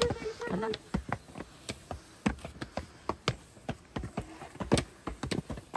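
Footsteps: an irregular run of sharp steps, about two or three a second.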